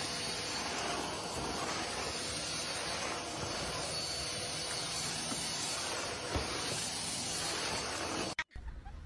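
A steady, even hiss of noise that holds at one level and cuts off suddenly near the end.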